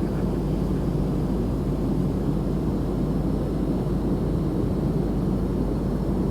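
Steady engine and airflow noise inside an airliner's cabin in flight, a constant low rushing drone.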